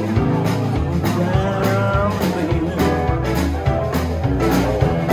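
Live band playing: electric guitars, keyboard and a drum kit, the drums keeping a steady beat under melodic guitar lines.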